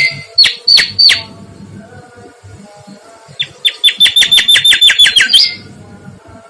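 Mangrove whistler (kancilan bakau) singing loudly: three down-slurred whistled notes near the start, then, after a pause, a fast run of about a dozen sharp descending notes ending in a short flourish.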